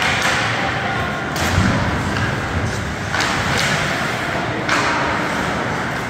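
Ice hockey play in a rink: skate blades scraping the ice, several sharp clacks of sticks and puck, and a low thud about a second and a half in.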